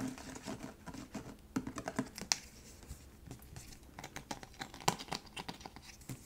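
Light, irregular tapping and clicking on unboxed items, given as ASMR trigger sounds, with a couple of sharper clicks about two and five seconds in.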